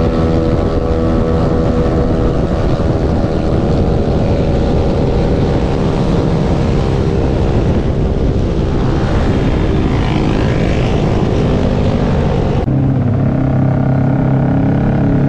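Motorcycle engines running at highway speed with heavy wind rush on a helmet-mounted microphone. About 12–13 seconds in, the sound changes abruptly to a steadier, lower engine note with the hiss cut back.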